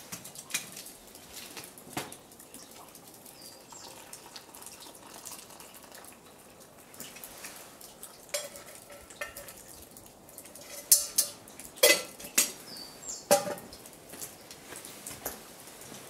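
A metal camping pot handled with a pot gripper, its lid and handle clinking, and hot water poured from it into a stainless steel mug. Several sharp metal clanks come in the second half as the pot is set down.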